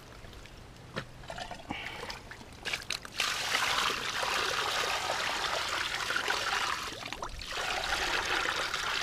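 Muddy pond water poured from a bucket into a woven basket, a steady splashing pour that starts about three seconds in, with a short break about seven seconds in before it goes on. A few small knocks and splashes in the mud come before the pour.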